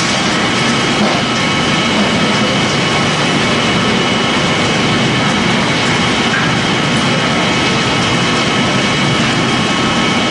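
Pellet-making machine for corn stalk and sawdust running steadily: a loud, unbroken mechanical noise with a faint steady whine on top.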